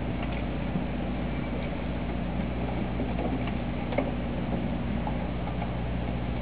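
Steady low hum of a boat's running machinery, with a few faint ticks.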